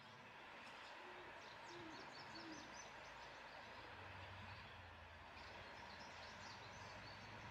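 Faint outdoor ambience near silence, with three short low calls from an unseen bird between about one and two and a half seconds in. Faint high chirps and a steady soft hiss run underneath.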